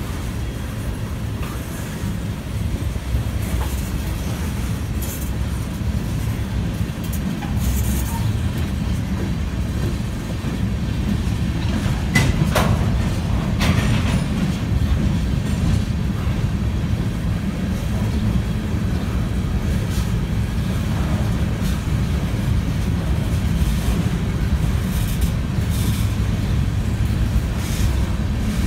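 Norfolk Southern freight train rolling past: a steady low rumble of the cars with scattered sharp clicks and knocks from the wheels and couplers. The loudest cluster of clicks, with a brief squeak, comes a little under halfway through.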